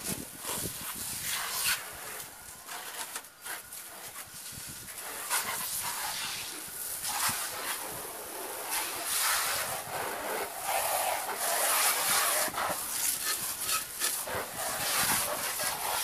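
Water jetting from a hose-end spray wand onto a car's windshield and hood: an uneven hiss and spatter of spray on the body panels, swelling and fading as the jet moves across the car.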